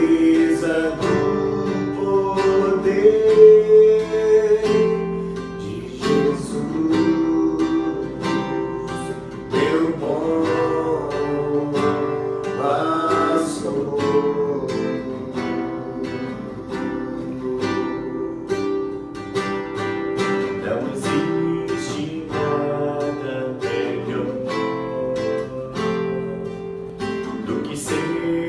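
Worship song music led by acoustic guitar, strummed and plucked, with a voice singing in places.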